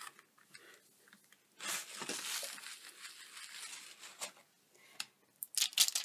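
Clear photopolymer stamps and their plastic sheet being handled: a soft crinkling rustle lasting about two seconds, then a few quick clicks and taps near the end.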